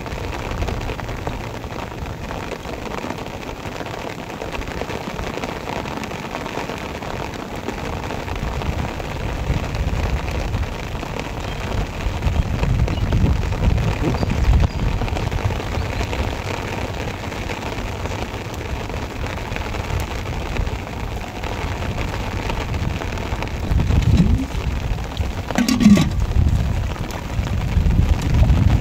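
Heavy rain falling steadily on the water of a flooded wetland, with a low rumbling underneath that grows louder from about a third of the way in.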